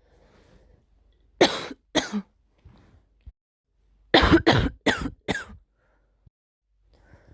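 A person with a sore throat and blocked nose coughing: two coughs about a second and a half in, then a quick run of four coughs about four seconds in.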